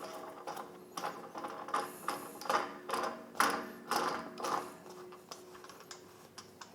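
Metal stand's threaded support leg being screwed down toward the floor: a run of ratchety clicks and scrapes, about two a second, that die away after about five seconds.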